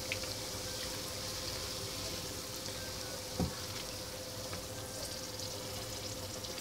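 Eggplant sticks sizzling gently in hot oil in a frying pan as they are turned with a silicone spatula, with one short knock about three and a half seconds in. A faint steady hum runs underneath.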